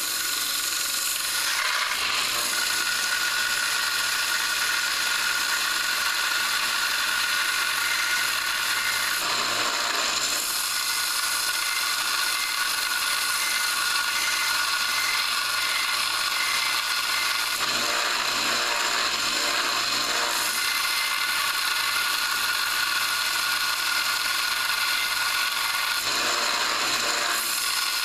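Harbor Freight belt sander running with a coil-spring steel cold chisel held against the belt to grind its bevel: a steady grinding hiss over the machine's whine, changing briefly in tone three times.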